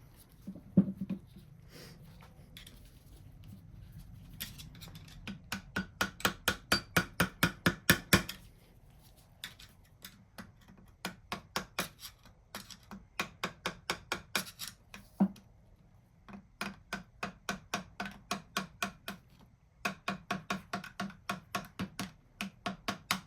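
Light, rapid hammer taps on a cast-iron vise part, about five a second, in several runs of a few seconds with short pauses between. They are kept gentle so as not to crack the cast piece.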